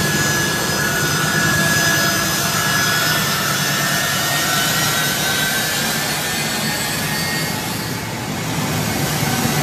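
The turbofan engines of a U.S. Air Force C-17 Globemaster III transport running close by: a steady rush with high turbine whines that sink slightly in pitch.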